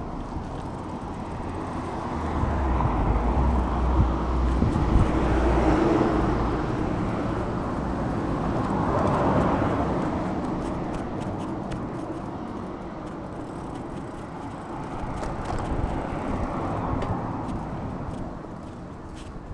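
Street traffic noise with cars going by, swelling louder a few seconds in, again near the middle, and once more later on.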